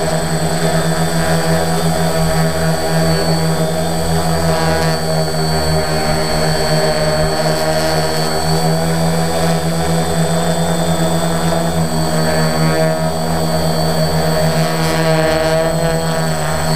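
Electric motors and propellers of a small drone helicopter hovering, a steady whine and buzz of several tones heard from on board.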